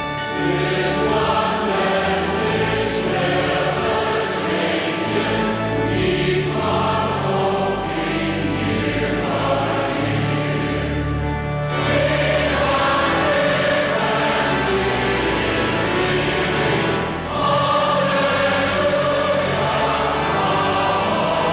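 Choir singing with sustained instrumental accompaniment, full chords held over steady low bass notes, with a brief lull about two-thirds of the way through.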